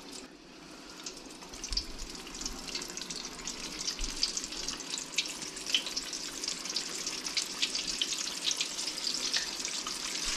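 Battered cobia nuggets deep-frying in oil at about 350°F: a steady bubbling sizzle with many small crackling pops that grows louder as more pieces go in. The lively bubbling shows the oil is hot enough.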